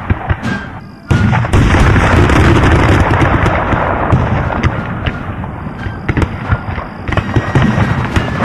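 Battle sound effects of dense gunfire and booms over music. The sound drops away about a second in, then comes back suddenly loud, crowded with sharp cracks.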